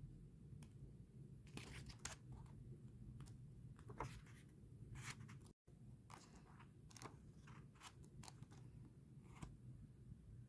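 Faint rustling and crinkling of paperback manga pages being handled and turned by hand, in scattered short crackles. The sound drops out completely for a moment a little past halfway.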